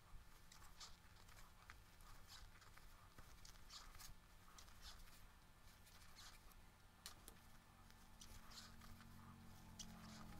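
Very faint, soft rustles and ticks of a crochet hook pulling acrylic-looking yarn through stitches, irregular, about one or two a second.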